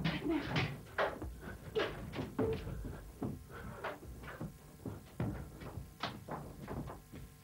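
Irregular thumps and rustles of bedclothes and mattress as two people scramble about on a bed. The sounds are busiest in the first three seconds, with two sharper knocks later on.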